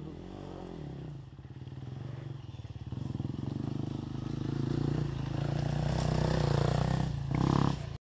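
Dirt bike engine running steadily close by, growing louder over the last few seconds, with a brief louder burst near the end. The camera being handled clatters and scrapes against it.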